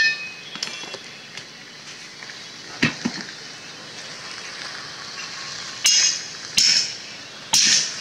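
Metal tools striking a car's steel wheel rim as the tyre bead is forced off by hand: a ringing metallic clink at the start and two lighter knocks about three seconds in. Then come three loud hammer blows on a steel wedge between tyre and rim, about a second apart, in the second half.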